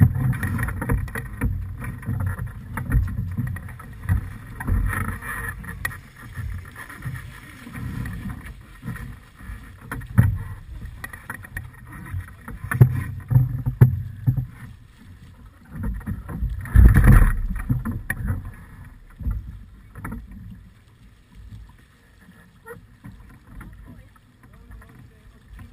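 Wind buffeting the microphone and water rushing along the hull of a small sailing yacht under way, coming in uneven gusts. About two-thirds of the way through there is one loud burst of noise, and it goes quieter near the end.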